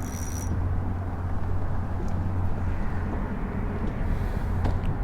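Steady low outdoor rumble with a hiss above it, even throughout, with a brief faint high whistle right at the start.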